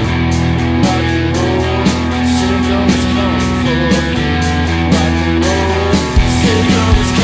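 Rock band playing: electric guitar over sustained bass notes and drums keeping a steady beat.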